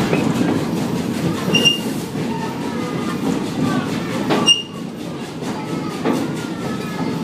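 Steady rumble and clickety-clack of a narrow-gauge passenger car rolling along the track, with short high squeaks of the wheels and a sharp clank about four and a half seconds in.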